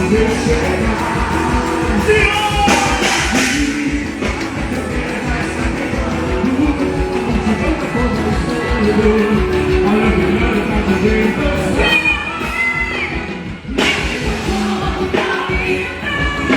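Loud music with singing over a steady pulsing beat, with a short dip in level near the end.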